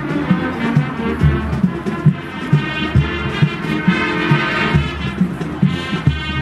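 Marching band playing a brass-led tune over a steady drum beat.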